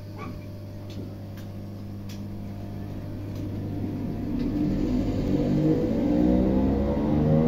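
Electric multiple unit, a ScotRail Class 318, pulling away from the platform. A steady low hum gives way about halfway through to a whine in several pitches that rises and grows louder as the traction motors accelerate the train.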